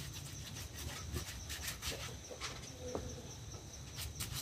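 A brush scrubbing wet feet in quick, repeated, rasping strokes.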